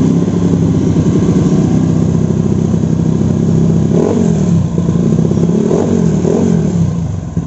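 Single-cylinder engine of a 125cc-spec Honda Beat scooter running through a Tsukigi VND aftermarket exhaust on a rich ('wet') ECU map. It holds a steady raised idle, then is revved in short blips a little past halfway and twice more near the end, the pitch rising and falling with each.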